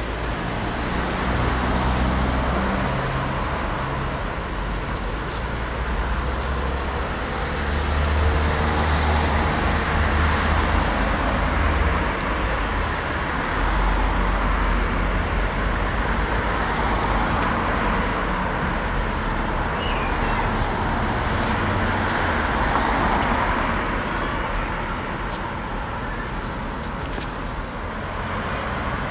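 Road traffic: cars passing one after another on a suburban road, their tyre and engine noise swelling and fading in turn.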